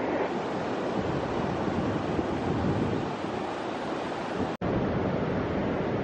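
Steady ocean surf mixed with wind buffeting the microphone, an even rushing noise, broken by a momentary dropout about two-thirds of the way through.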